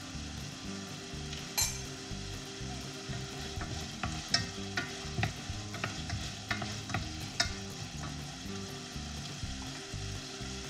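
Food sizzling as it fries in a pan, with a few sharp clicks of a spoon against a bowl.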